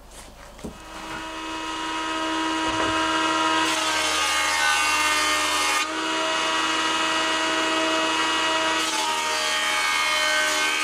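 Electric benchtop jointer running: its motor comes up to speed over the first two seconds, then holds a steady whine. A wooden board is planed twice across the cutterhead, with a rasping cut from about four to six seconds in and again near the end.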